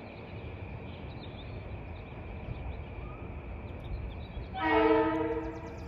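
Kawasaki M8 electric multiple-unit train sounding one short horn toot about a second long near the end, over the low running noise of the approaching train.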